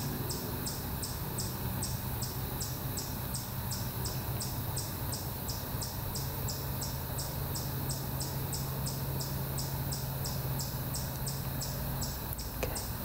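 Insects chirping in a steady rhythm, about three to four high-pitched chirps a second, over a low background hum.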